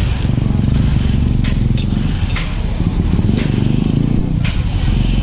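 Yamaha 110cc single-cylinder four-stroke motorcycle engine running steadily after a rebuild with new piston rings, valves and gaskets, with a few sharp ticks over the engine note.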